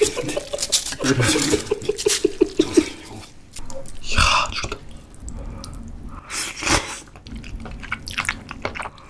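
Wet, sticky squelching and clicking of sauced wide noodles being stirred and lifted with chopsticks, with slushy shaved ice mixed through sauce, then slurping and chewing. A short run of quick vocal pulses comes about a second in.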